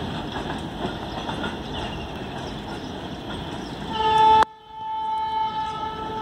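Freight train wagons rolling over the track with a steady rumble. About four seconds in, a train horn sounds a single steady note for about two and a half seconds, and the rolling noise drops away suddenly soon after it starts.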